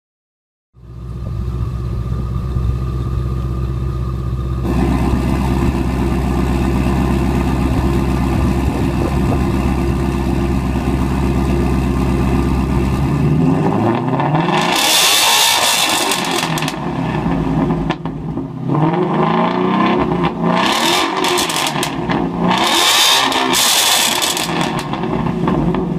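Ford Mustang Shelby GT350R's 5.2-litre flat-plane-crank V8 idling steadily through its quad exhaust, then revved several times in the second half, each rev climbing sharply and falling back to idle.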